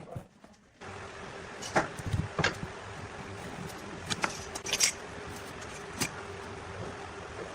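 A machine motor running with a steady hum, with several sharp knocks and clicks of wood or tools being handled over it.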